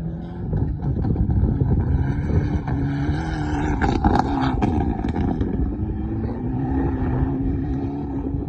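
Rally car engine running at fairly steady low revs, its pitch wavering slightly up and down.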